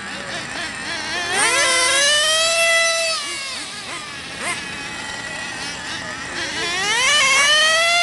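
Gas-powered RC car's small two-stroke engine revving up to a high, buzzing whine and easing back down, twice: once about a second in and again near the end.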